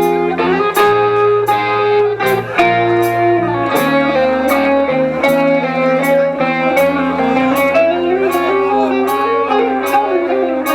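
Live rock band playing: a guitar line over long, stepping bass notes, with a steady cymbal tick about twice a second and no singing.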